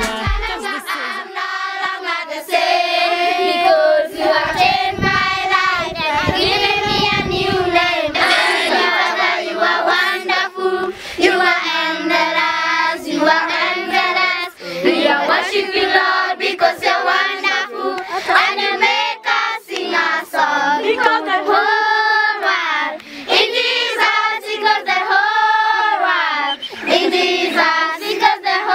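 A group of children singing together, with hand claps.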